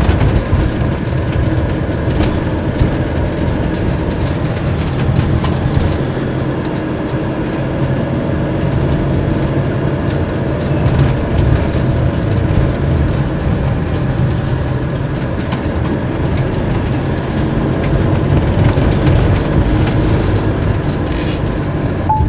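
Fiat Ducato-based motorhome driving at town speed, heard inside the cab: a steady low rumble of engine and road noise with some light rattling.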